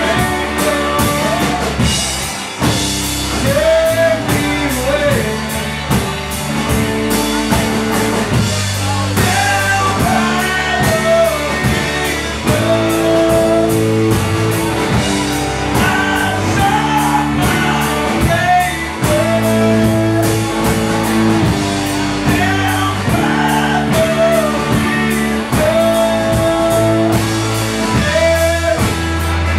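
Live rock band playing: a male lead vocal sung over electric guitar, bass and a drum kit keeping a steady beat.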